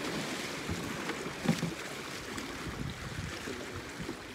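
Small sea waves washing against the rocks of a breakwater, with wind on the microphone; a single short knock about one and a half seconds in.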